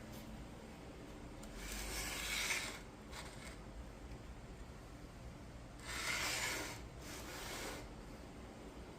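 Two brief rubbing, scraping sounds about four seconds apart, the second a little longer.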